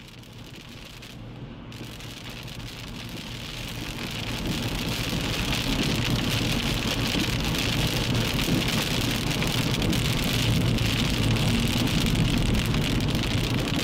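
Heavy rain: a steady hiss of rain with a low rumble beneath it, fading in over the first four or five seconds and then holding steady.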